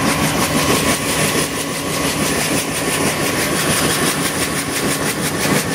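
Bell UH-1 Huey helicopter running on the ground: a steady high turbine whine over the even, rhythmic chop of the rotor blades.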